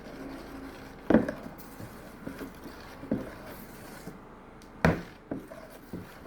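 A spoon knocking against a mixing bowl while stirring okpa (bambara nut flour) batter. There are a few soft knocks and two sharper ones, about a second in and near five seconds.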